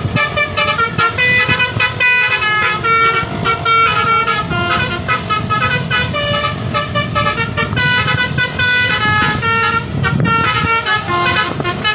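Vehicle horns sounding rapid, changing runs of short pitched tones, like a musical multi-tone horn, over the low rumble of engines.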